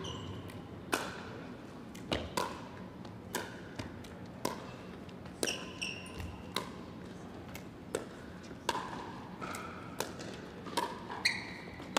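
Pickleball rally: paddles striking a hard plastic Franklin X-26 ball, sharp pops coming at an uneven pace of about one a second, some with a brief ring.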